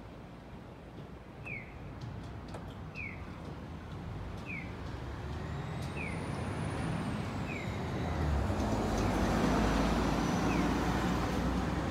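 Electric commuter train passing on the tracks, its running noise building from about six seconds in and loudest near the end. Through it, a short high falling chirp repeats evenly about every second and a half.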